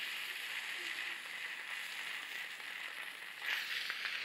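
Aerosol can of whipped cream spraying in a steady hiss.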